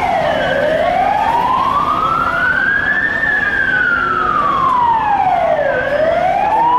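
Emergency vehicle siren wailing in slow sweeps, its pitch rising and falling over roughly five seconds per cycle.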